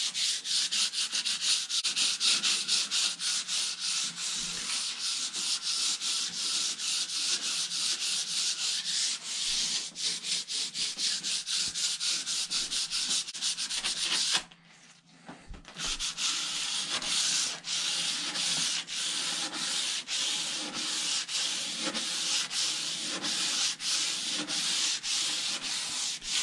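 Hand sanding of a finished wooden furniture surface with the grain: quick back-and-forth strokes, about three a second, with a short pause about halfway. It is a light scuff-sanding that roughs up the old finish so primer and paint will adhere.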